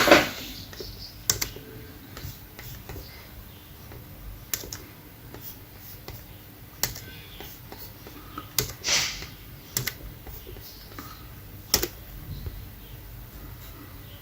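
Irregular clicks and taps of typing on a computer keyboard, a few sharper than the rest, with one loud short burst at the very start.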